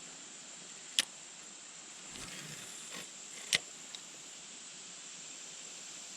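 Faint steady high-pitched insect chirring, with two sharp clicks, one about a second in and another about two and a half seconds later.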